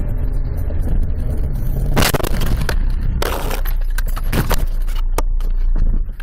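Car driving with a steady low rumble, then about two seconds in a crash: a sudden loud impact followed by a couple of seconds of scraping and clattering, with a few sharp knocks near the end.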